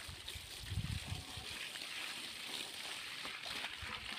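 Water from a garden hose spraying and splashing onto a motorcycle's front wheel and the wet ground, a steady hiss, with irregular low rumbles loudest about a second in.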